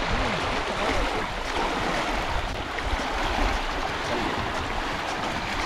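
Small waves lapping and breaking on a pebbly shore, a steady wash of water, with wind rumbling on the microphone.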